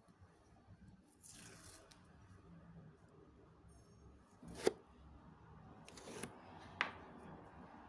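Masking tape being pulled off the roll and wrapped around a LEGO Technic wheel hub, a crackly peeling sound, with two sharp clicks about two seconds apart, the first the louder.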